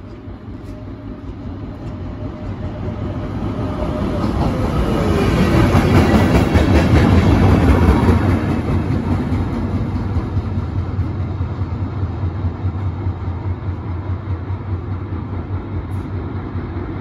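A train passing at speed. It builds up as it approaches and is loudest about six to eight seconds in, with wheels clicking over the rails and a tone that drops in pitch as the front goes by, then the rest of the train rolls past as the sound slowly eases off.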